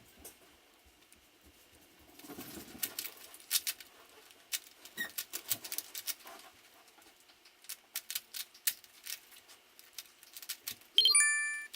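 Plastic 3x3 Rubik's cube clicking and clacking as its layers are turned quickly, in irregular runs of sharp clicks. Near the end a brief loud, high-pitched tone sounds.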